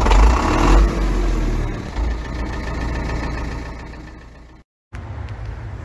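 An engine running loud and revving, then settling and fading away. After a brief silence near the end, a quieter steady low rumble begins.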